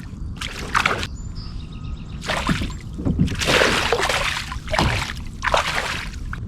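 Hooked fish, a bass of about two pounds, splashing and thrashing at the surface beside a kayak as it is played in, about five separate splashes.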